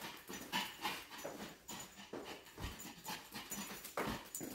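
A Pomeranian scampering on a tile floor, its claws and paws making irregular light clicks, with a couple of soft thumps about two and a half and four seconds in.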